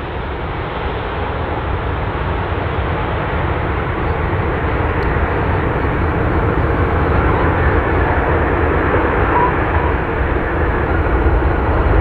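Airbus A350-900's Rolls-Royce Trent XWB jet engines on landing: a steady jet roar that grows louder as the airliner touches down and rolls out.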